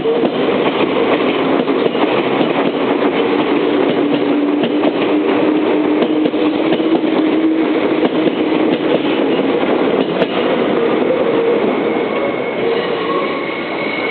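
Meitetsu electric train running past a level crossing, the steady rumble of the cars broken by many rapid clacks of the wheels over the rail joints.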